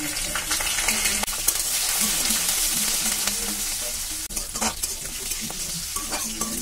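Chopped garlic and whole green chillies sizzling in hot oil in a steel kadai, stirred with a metal spatula. A steady hiss, with a few sharp clicks from the spatula on the pan and the chillies spitting.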